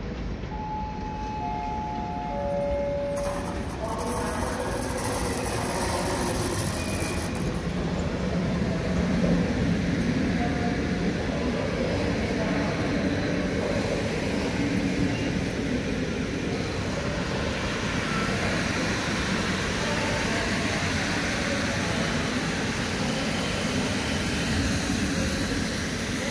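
EP09 electric locomotive and Intercity passenger coaches rolling past a platform, a steady rumble and clatter of wheels on rail that swells about three seconds in and holds. It is preceded by a three-note falling chime.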